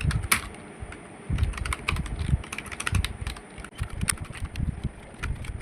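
Fast, irregular typing on a computer keyboard: a steady stream of key clicks, each with a low thud as the key bottoms out.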